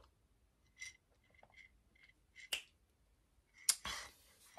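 Faint sipping and swallowing from a ceramic mug, then a sharp click and a louder knock as the crockery is set down and handled.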